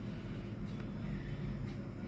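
Steady low electrical hum with two faint ticks about a second apart as a multimeter probe is held on test points of an LED TV panel's board during a continuity check.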